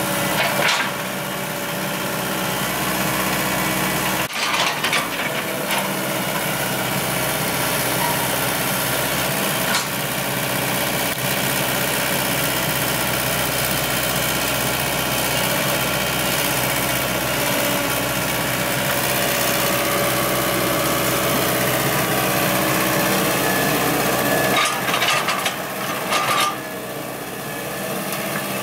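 Komatsu hydraulic excavator working, its diesel engine running steadily, with a few sharp clanks and knocks from the machine at work, a cluster near the start, another about four seconds in and more near the end.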